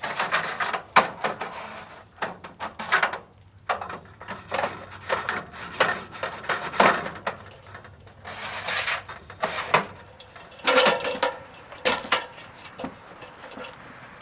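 Hand work at the metal roof's edge trim of a barn: irregular scraping and rubbing strokes with a few sharp knocks.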